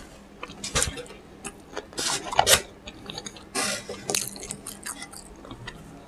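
Scattered short clicks and brief rustles of close-miked eating: chewing, and a paper napkin wiped across the mouth.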